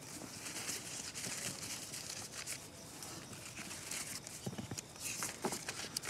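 Small folded paper slips faintly rustling and crinkling as they are unfolded by hand, with scattered short crackles.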